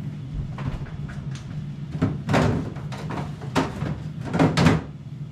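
Air fryer running with a steady low hum, with several knocks and clatters over it, the loudest about two seconds in and again near the end.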